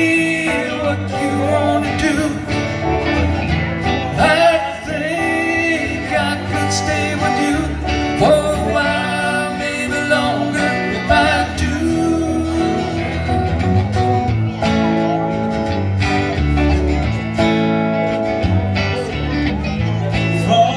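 Small live band playing a song through a PA: strummed acoustic guitar, electric guitar and keyboard, with male vocals.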